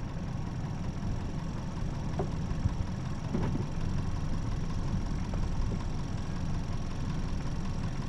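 Car engine running slowly with a steady low rumble, heard from a camera mounted on the bonnet. A faint, steady high-pitched whine sits above it.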